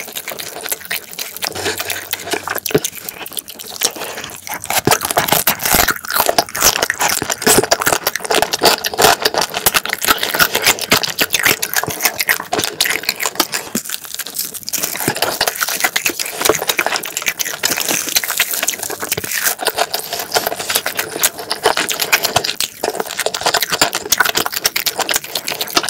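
Close-miked chewing of a mouthful of fried rice and spicy marinated crab: a steady run of wet smacking and crackling mouth sounds.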